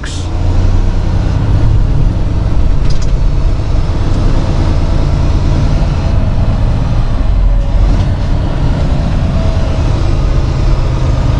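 Freightliner semi tractor's diesel engine running, heard from inside the cab as a steady low drone.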